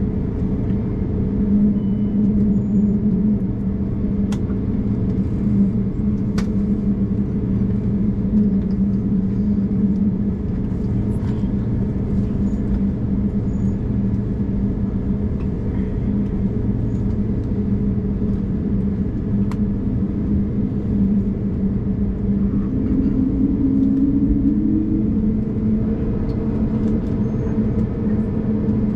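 Steady cabin rumble of an Airbus A220-300 from a front window seat: the drone of its Pratt & Whitney PW1500G geared turbofan engines mixed with airflow noise, holding even throughout.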